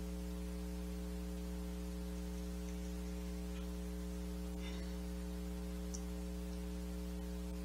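Steady electrical mains hum: a low, even buzz with a ladder of evenly spaced overtones that does not change.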